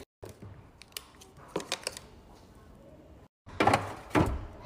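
Plastic mandarin fruit cups being set down and stacked into a plastic fridge bin: light clacks and taps, with a few louder knocks near the end.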